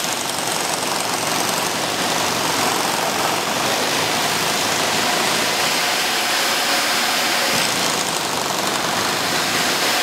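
Strawberry washing machine running steadily: a constant, even mechanical noise from the machine's motor and rollers.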